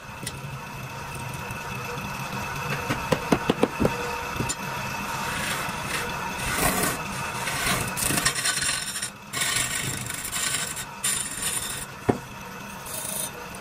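Wood lathe running with a steady motor hum while a hand-held turning chisel cuts into the spinning wooden baluster in irregular bursts of scraping. A quick run of sharp clicks comes about three seconds in and a single sharp click near the end.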